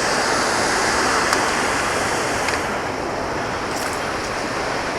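Steady rush of water pouring from an outlet into a river, with a few faint ticks.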